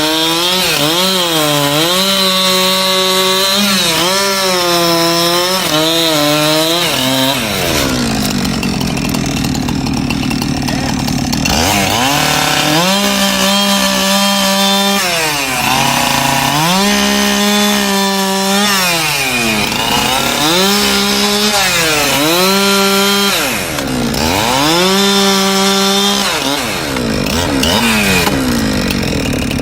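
Gas chainsaw repeatedly revving up and down, its engine pitch rising and falling every second or two. A noisier, steadier stretch at lower pitch comes about a quarter of the way in.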